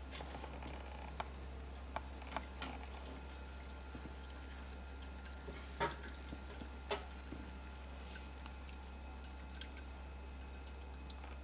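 Hot liquid caramel poured from a stainless steel pot into a metal flan mould: faint drips and a handful of light clicks of metal against metal, the clearest two a second apart about halfway through, over a steady low hum.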